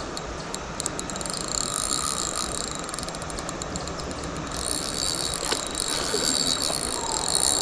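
Fishing reel's ratchet clicking in a rapid run of clicks while a hooked trout is played on the line, over a steady rush of river water.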